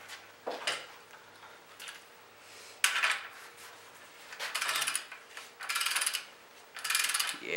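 Ratchet of a torque wrench clicking in short bursts as it is swung back and forth, running a main bearing cap nut down on a Ford 8N engine block. A few light metal clicks come first as the socket goes on, then about four quick ratcheting strokes roughly a second apart.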